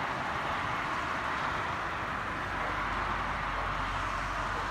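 Steady rain falling, an even hiss without breaks.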